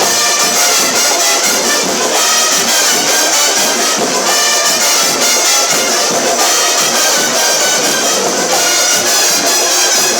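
A band playing, with brass instruments carrying the melody.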